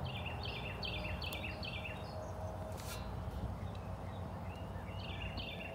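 A songbird singing quick runs of repeated chirping notes, one run at the start and another near the end, over a low steady rumble.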